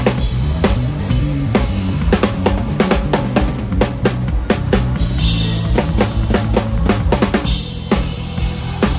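Hybrid drum kit with Turkish cymbals played live in a pop groove: steady kick, snare and tom hits over the band's bass line. A quick run of hits leads into a cymbal crash about five seconds in, and a second crash follows near seven and a half seconds.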